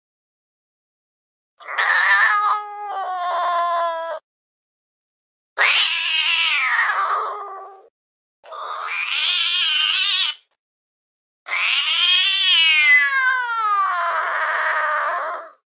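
A domestic cat giving four long, drawn-out meows with silent gaps between them, each call wavering and sliding down in pitch as it ends; the last is the longest, about four seconds.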